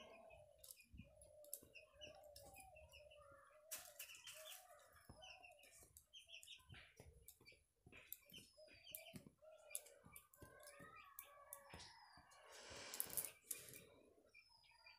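Faint scraping and clinking of a metal spatula stirring chicken and raw papaya pieces in a metal kadai. Short high chirps sound faintly in the background throughout.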